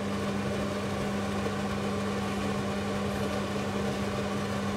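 Induction cooktop humming steadily under a cast-iron skillet: a constant low tone with the whir of its cooling fan.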